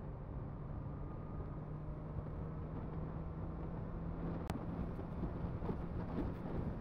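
Honda CBR650R's inline-four engine running steadily on the road, its note rising slightly, with wind noise on the microphone.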